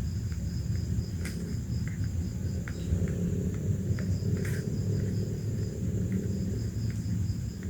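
Crickets chirping in a steady high pulsing trill over a low, constant rumble, with a few faint ticks.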